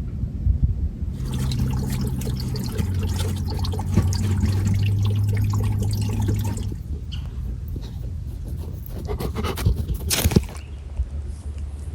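Water trickling and splashing, with many small drips and clicks, over a steady low rumble. The splashing is strongest from about a second in to about halfway through, and flares up again briefly near the end.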